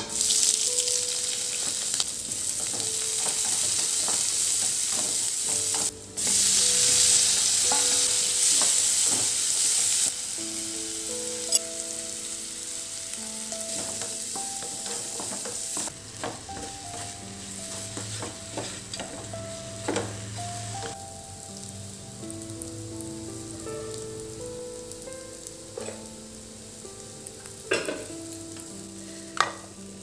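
Chopped onion and curry leaves hit hot oil with mustard seeds in a kadai and sizzle loudly. From about ten seconds in the sizzle is quieter, as idli pieces are stir-fried with a wooden spatula that taps and scrapes against the pan now and then.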